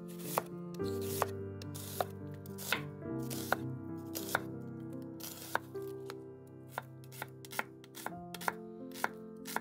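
Chef's knife slicing a red onion on a wooden cutting board, each cut ending in a sharp tap of the blade on the wood. The cuts come about one a second at first and quicken in the second half, over soft background music.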